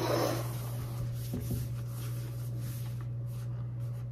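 Quiet room tone with a steady low hum and a few faint, brief small sounds.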